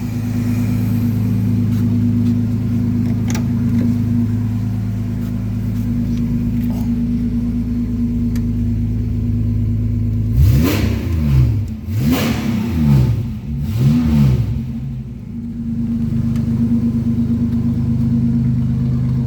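Car engine idling steadily, then revved three times in quick succession about ten seconds in before settling back to idle.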